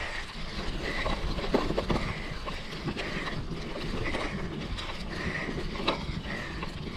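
Mountain bike being ridden along a dirt trail: the tyres rumble steadily while the bike rattles, with scattered clicks and knocks.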